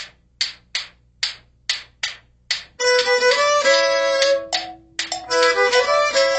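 Instrumental background music: seven evenly spaced percussive taps, then from about three seconds in, held melody notes over sustained chords.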